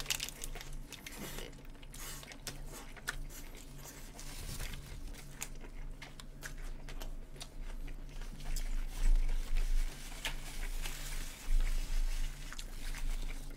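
Close-miked eating sounds: biting into and chewing burgers, with small wet clicks and paper burger wrappers crinkling, over a steady low hum. There are a few dull thumps in the second half.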